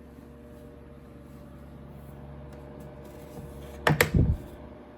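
Pelonis small-room air circulator fan running with a steady hum and airflow noise. About four seconds in, two or three quick loud knocks cut through it.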